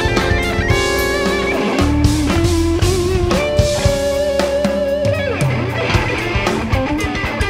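Live instrumental rock band: a Vola electric guitar plays a lead line of long held notes with vibrato over bass and drums. About five seconds in the held note glides down into a run of faster notes.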